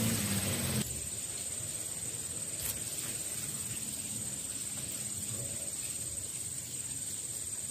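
Insects trilling steadily at one high pitch over a faint low background hum. A louder rush of noise at the very start cuts off sharply under a second in.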